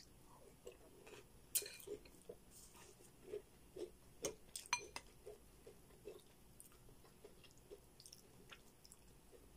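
Soft chewing of a spoonful of food, with sharp clicks of a metal spoon against a ceramic bowl; the loudest, about midway, is a short ringing clink.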